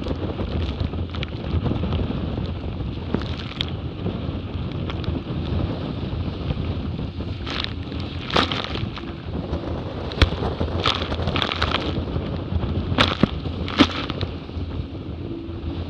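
Wind buffeting the microphone and water rushing past the hulls of a Hobie 20 catamaran sailing at about 16 knots. From about halfway through, spray and wave slaps hit the boat and camera several times in sharp splashes.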